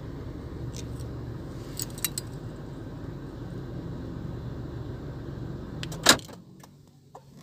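Car engine idling, heard from inside the cabin, running on a DIY engine-start relay kit with no key in the ignition, with a few light clicks. About six seconds in there is a loud click and the engine sound stops.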